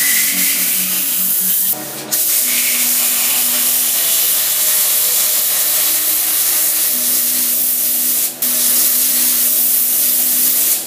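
Hypertherm Powermax30 plasma cutter cutting through steel channel: a loud, steady hiss of the arc, broken twice for a moment, about two seconds in and again near eight seconds, as the arc stops and restarts.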